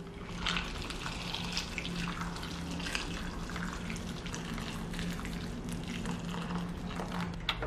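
Water poured in a steady stream from an electric kettle into a saucepan of cubed pumpkin, splashing and trickling over the pieces.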